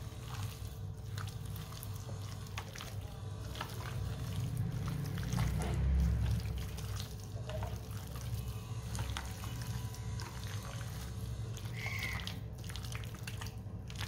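Wet squishing and small irregular clicks of a hand kneading chicken pieces through a thick yogurt-and-spice marinade in a glass bowl, over a low steady hum.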